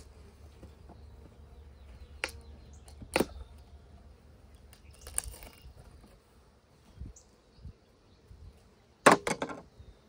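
Sharp knocks and scraping clatter as a wooden package of honeybees is handled and worked open on top of a hive box, the loudest a quick cluster of knocks near the end. Faint buzzing of bees underneath.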